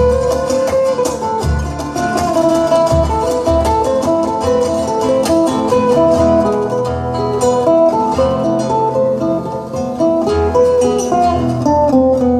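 Solo ukulele played fast, with quick runs of plucked notes over deeper notes underneath.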